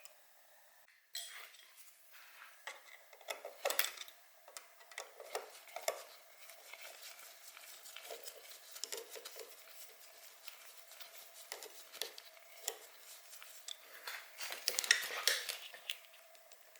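Metal hand tools and parts clinking and tapping during work on a dirt bike: a string of irregular light clicks and clanks, busier near the end, over a faint steady hum.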